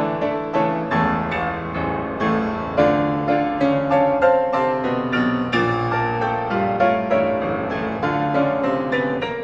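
Closing music played on piano: a continuous melody of separately struck notes.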